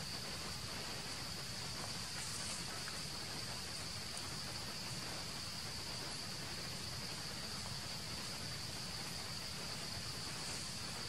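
Steady, unbroken high-pitched drone of insects singing, over a constant outdoor hiss.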